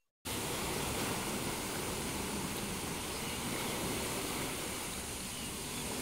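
Sea waves breaking and washing over a rocky shore: a steady rushing of surf that cuts in suddenly just after the start.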